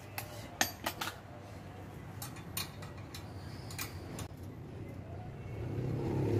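Scattered light metallic clicks and clinks as a bolt and a hand tool are worked at a bicycle's front fork, the bolt being unscrewed and taken off. A low rumble swells near the end.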